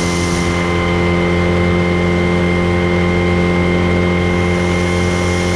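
Boat engine running at a steady speed, loud and even in pitch.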